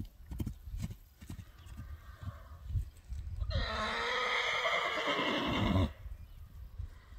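A horse's dull hoof thuds on dry ground as it trots, then a loud whinny lasting over two seconds, starting about halfway through and cutting off sharply.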